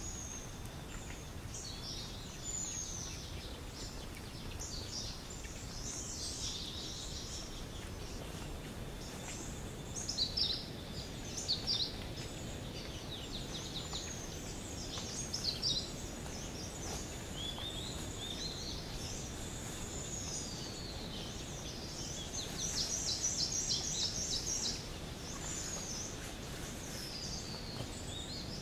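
Forest birds calling and singing, many short chirps and whistles over a steady outdoor background hiss. Late on, one bird gives a fast trill of quickly repeated notes lasting about two seconds.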